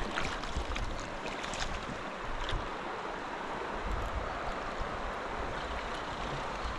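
Shallow river water running steadily over stones, with gusts of wind buffeting the microphone now and then.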